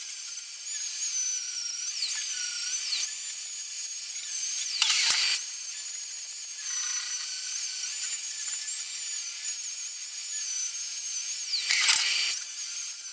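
Angle grinder fitted with a flap disc running at a steady high whine against a steel post, cleaning its surface. Its pitch dips briefly three times, with a rougher burst each time.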